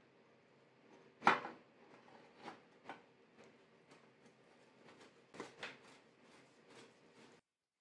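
Light metallic clicks and knocks as a steel thread-chasing tool is fitted and turned by hand in a bicycle frame's bottom bracket shell: one sharper knock about a second in, then a few softer clicks, over faint room hiss.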